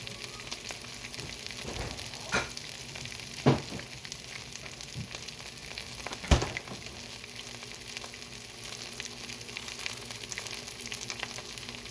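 Cheese and bacon chaffle sizzling and crackling in a chaffle maker (a mini waffle iron). Three sharper knocks come about two, three and a half and six seconds in; the last is the loudest.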